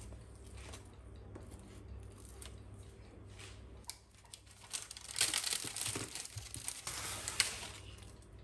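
Flaky baked puff pastry crackling and baking paper crinkling as a slotted metal spatula cuts into the pastry and lifts pieces off the tray. The crackling grows louder about five seconds in, with one sharp click near the end.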